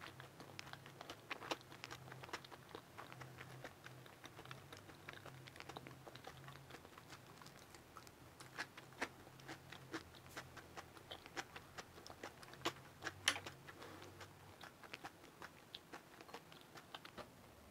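A person chewing mouthfuls of chive pancake and kimchi close to a clip-on mic: faint, irregular small crunches and clicks, with a faint steady low hum underneath.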